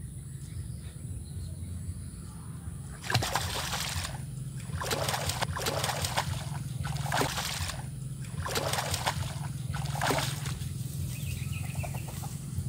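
Hooked catfish splashing and thrashing at the surface of a small muddy pool as it is reeled in, in a series of splashy bursts beginning about three seconds in.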